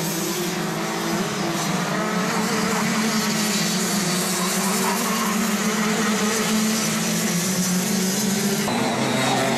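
Racing karts' two-stroke engines running hard on track, a steady high-revving buzz whose pitch wavers as the karts go through the corners, with an abrupt change in the sound near the end.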